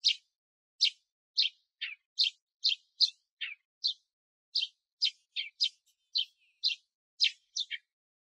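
Male Eurasian tree sparrow singing: a series of short, sharp chirps, unevenly spaced at about two a second, a few of them sliding down in pitch.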